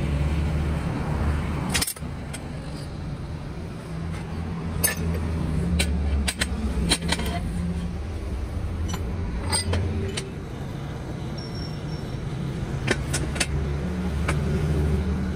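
Light metallic clinks and taps from lead battery plates and hand tools being handled, scattered irregularly, over a low motor drone that fades and returns.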